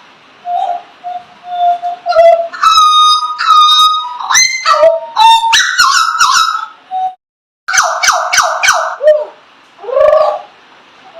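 A songbird singing an unusual, varied song: loose whistles, then a loud run of sharp clicks, rising and falling whistled glides and quick repeated notes, with a short break partway through.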